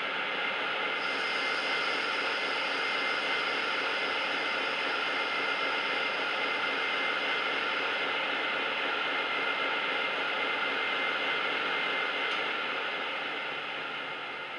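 Class 56 diesel locomotive sound played by a DCC sound decoder through an EM1 speaker in a model locomotive: a steady, hissy engine running sound that eases off over the last couple of seconds.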